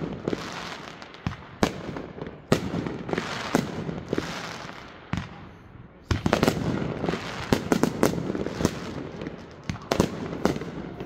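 Fireworks going off: sharp bangs of aerial bursts with crackling and fizzing between them. From about six seconds in the reports come thick and fast as several effects fire at once.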